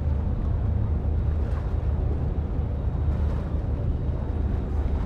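Waterfront ambience at the edge of a stone quay: a steady low rumble with choppy water sloshing against the stonework.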